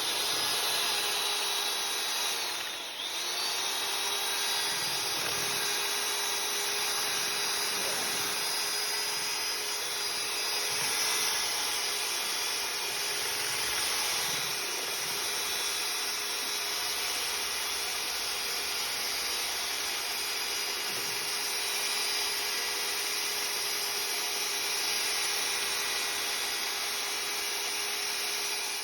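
Electric power tool motor running steadily under load, with a steady hum; its pitch dips briefly and recovers about three seconds in.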